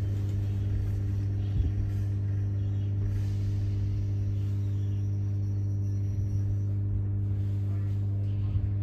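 Steady electrical hum inside a Class 319 electric train carriage, a low drone with several fixed tones from the train's onboard equipment. A couple of soft knocks, one early and one near the end.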